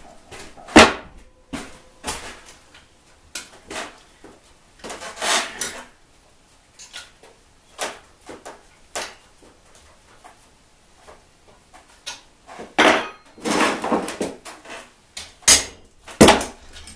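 Hand tools and metal trike parts clinking, clattering and knocking during disassembly, in irregular short bursts. The loudest knocks come about a second in and again near the end.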